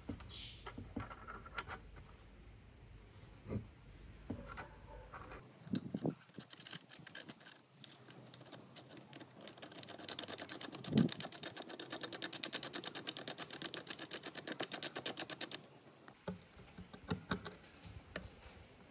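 Small metal and plastic telescope parts handled and fitted together by hand: scattered clicks and taps, then a run of rapid, even clicking lasting about five seconds in the second half, with one louder knock near its start.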